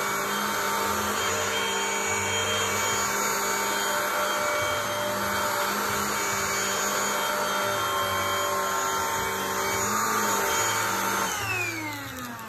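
Cordless stick vacuum cleaner running steadily, its motor giving a constant hum and high whine. Near the end it is switched off and the motor winds down, its pitch falling as it fades.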